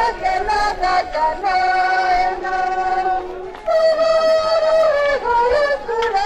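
A song with a singing voice holding long notes that slide from pitch to pitch.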